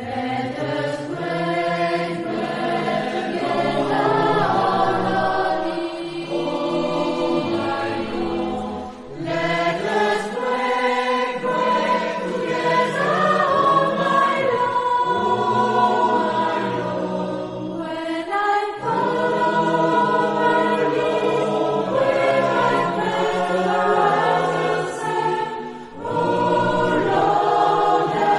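A choir singing a sacred choral piece in long phrases, with short breaks about a third of the way in, near the middle and shortly before the end.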